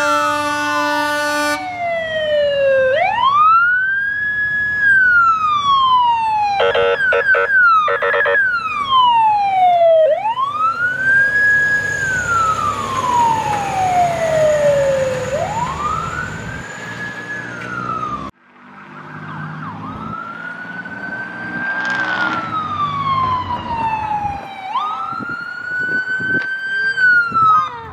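A fire engine's siren on a slow wail, rising and falling over several seconds at a time, with a horn blast at the start and two short horn blasts about seven seconds in. After a cut about eighteen seconds in, an ambulance siren wails the same way.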